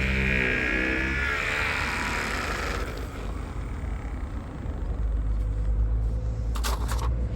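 Electric polisher running with a steady whine, then switched off: the whine falls in pitch as the motor spins down over the next couple of seconds. A low rumble follows, with a few sharp clicks near the end.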